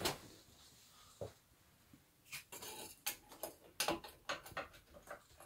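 Metal clicks, knocks and a short rattling scrape as a moped's front fork leg, its spring fitted, is handled and pushed up into the steering clamp. A knock at the start, a click about a second in, a scraping rattle around the middle, then scattered light clicks.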